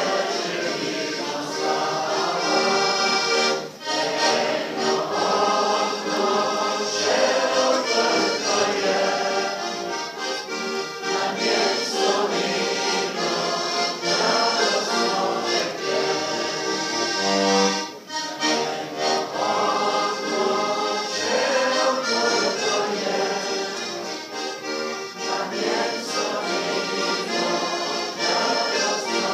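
Diatonic button accordion (Slovenian frajtonarica) played solo, a continuous tune with two short breaks, about 4 and 18 seconds in.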